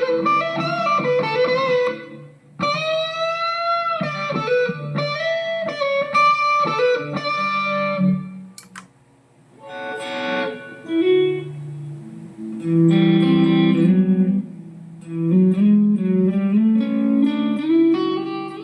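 Electric guitar played through a Mooer GE150 Pro Li multi-effects processor. It plays single-note lines with bends and vibrato, drops out briefly about nine seconds in, then returns with fuller chords and a rising run near the end.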